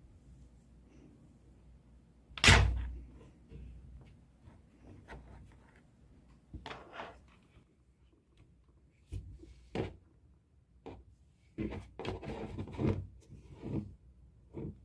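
Scattered knocks and thumps: one sharp knock about two and a half seconds in, then softer bumps and rustling, busiest near the end.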